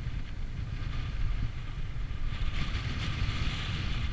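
Wind buffeting the camera's microphone: a steady low rumble with a rushing hiss that swells about two seconds in.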